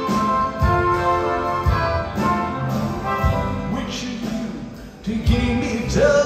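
A rock band and symphony orchestra playing together live in an instrumental passage between sung lines, with sustained chords and low drum hits; the music drops back a little after four seconds and swells again about a second later.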